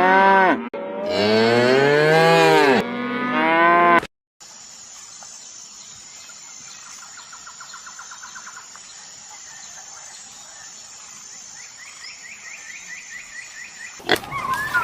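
Cow mooing: three long, loud moos that bend in pitch, ending abruptly about four seconds in. After the cut comes a much quieter stretch: a steady high-pitched hum with two brief runs of fast trills, like insects.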